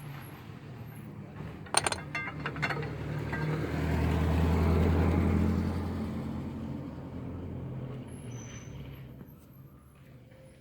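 A motor vehicle passes, its low engine rumble and road noise swelling to a peak about five seconds in and then fading away. A quick run of sharp clicks comes about two seconds in.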